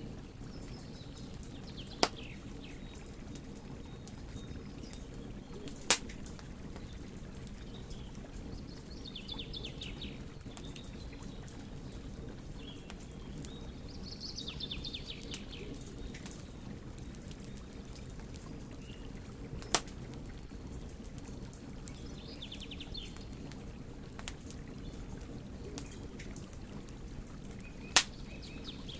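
Wood fire burning with a steady low rush and light crackling, broken by four sharp, loud pops about 2, 6, 20 and 28 seconds in. Short high chirping trills come and go a few times over it.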